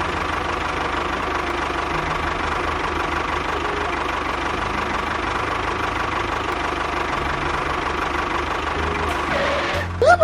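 A small engine running steadily at idle with an even low throb, cutting off just before the end.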